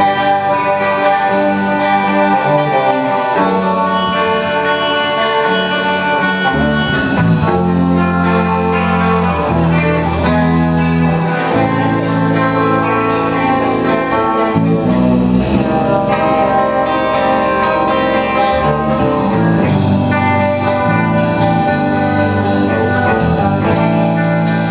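A band playing an instrumental piece, with guitar over a moving bass line and a steady beat.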